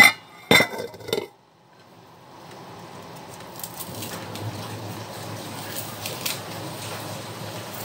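Metal pot lid clanking a few times in the first second as it comes off the pot, then a pot of beef broth boiling steadily, the bubbling building up, with a few faint clicks as green onions are cut into it.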